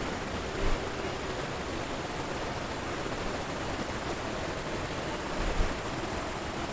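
Steady rushing of a fast-flowing stream over rapids, with two soft low thumps, one about a second in and one near the end.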